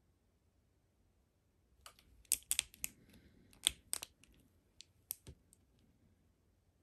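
Hard plastic clicking and clacking as a G.I. Joe Classified Zartan action figure's swap head is pushed and worked onto its neck peg: a quick irregular run of sharp clicks for a few seconds after a quiet start.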